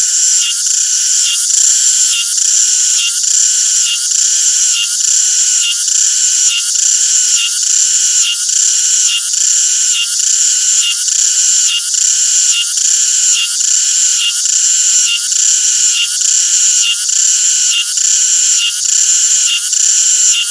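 Cicada song: a loud, steady, high buzz pulsing about twice a second.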